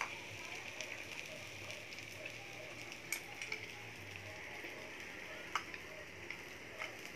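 Faint, steady sizzling of food cooking on a tabletop Korean barbecue hot-pot grill pan, with a few light clicks.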